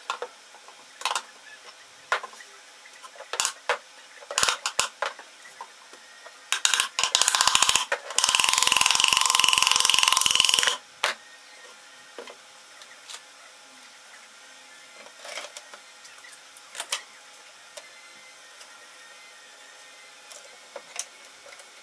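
Plywood cabinet panels knocked and handled with scattered sharp wooden knocks and clicks. About two-thirds of the way through the first half, a rapid rattle leads into a machine running loudly and steadily for about three seconds, which then cuts off suddenly.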